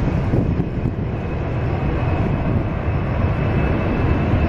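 Steady low mechanical rumble, like a running engine heard close up, with a faint steady high tone above it.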